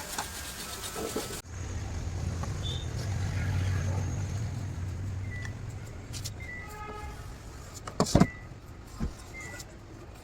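Low engine rumble of a passing vehicle, swelling and then fading over several seconds. Two sharp knocks follow about eight seconds in, and a lighter one a second later.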